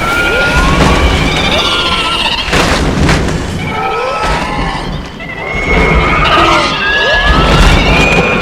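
King Ghidorah's monster cries, as in the 2001 Millennium-series film: many overlapping high, chirping screeches that glide up and down over a continuous low rumble, with a rushing burst of noise about three seconds in.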